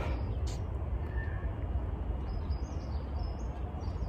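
Outdoor background: a steady low rumble of wind on the microphone, with a few faint high bird chirps in the middle.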